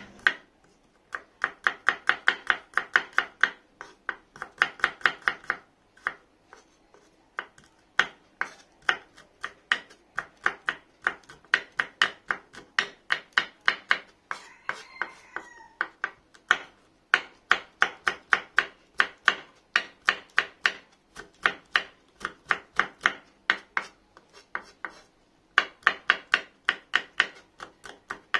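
Kitchen knife chopping garlic and red chilies on an end-grain wooden cutting board: quick runs of sharp knocks, several a second, broken by short pauses.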